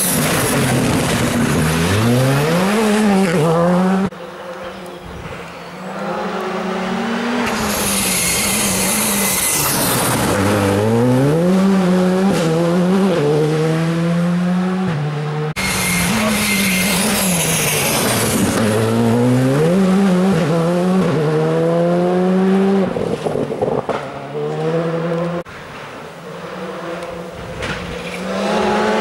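Škoda Fabia R5 rally car's turbocharged 1.6-litre four-cylinder engine revving hard, its pitch climbing through each gear and dropping at the shifts as the car accelerates past. Several separate runs follow one another, with abrupt breaks between them.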